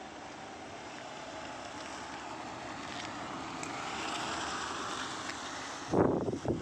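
Wind blowing on the microphone over a steady outdoor rush, with two loud low bumps on the microphone about six seconds in.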